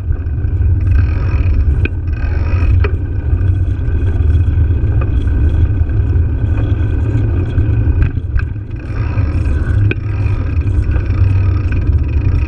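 Steady low rumble of wind and riding noise on an action camera's microphone as it rolls along a street, with a few short clicks and rattles.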